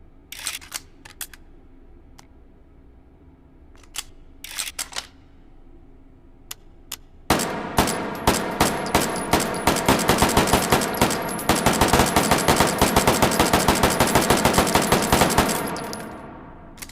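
A few sharp metallic clicks, then a rapid string of semi-automatic shots from a 1918 Springfield rifle fitted with the Pedersen device, firing its small .30 pistol-size cartridges, at about five shots a second for about eight seconds. The shots run together in a ringing echo that fades after the last one.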